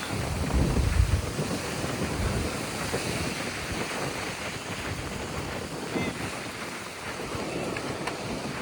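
Mediterranean surf washing onto the shore under a steady rush of wind, with wind buffeting the microphone in heavy low gusts during the first couple of seconds.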